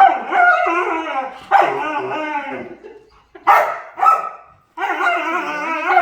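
A dog vocalizing during play in a string of about five drawn-out calls whose pitch wavers up and down, each separated by a short break.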